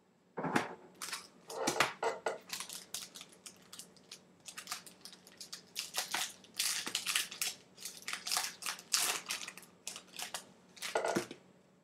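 A trading card pack's wrapper being torn open and crinkled by hand: a long run of irregular crackling and rustling with sharper tears near the start and the end.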